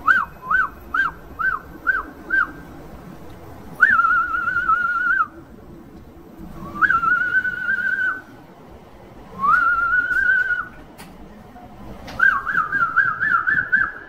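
A person whistling in phrases: a run of about six short rising notes, then three long wavering held notes a couple of seconds apart, then a quick trill near the end.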